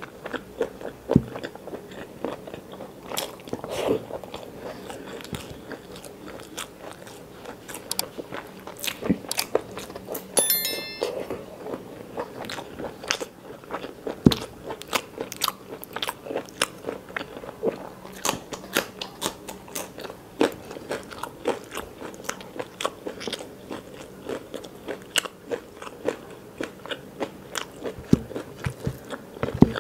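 Close-miked eating: wet chewing, smacking and sharp mouth clicks, many to the second, as rice and chicken gizzard curry are eaten by hand, with fingers squishing rice on the plate.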